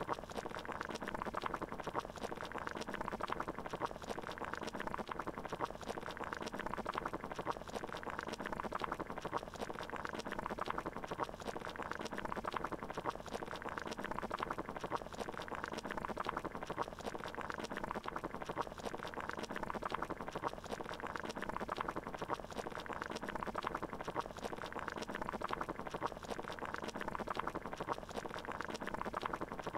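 Water boiling, bubbling steadily as a dense, even run of small pops.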